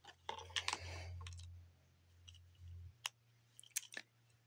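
Quiet handling noise of a wired gaming headset: rustling and light clicks as its cable and plastic inline control box are picked up and moved. A few separate sharp ticks come near the end.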